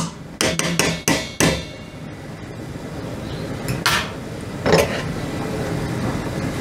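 A metal fork knocking against a stainless steel cooking pot a few times in the first second and a half, then two louder knocks about four and five seconds in. Beneath them runs the steady sound of the pot boiling.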